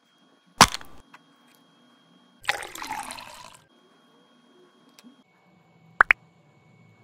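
Cartoon sound effects for a toy cup of yakisoba: a sharp click, then about a second of water splashing out as the hot water is poured off the noodles, then two quick rising pops near the end.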